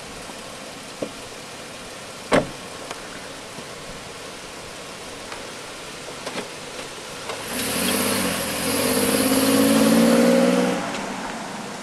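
A car door shuts with a single thud about two seconds in. Later a Chevrolet Equinox SUV's engine revs up as it pulls away, growing loud and then dying down near the end.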